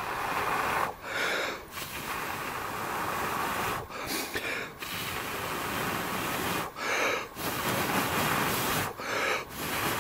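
A person blowing steadily into a smouldering tinder bundle to bring a bracket-fungus ember up to flame. Long rushing breaths are broken about four times by a quick gasp for air.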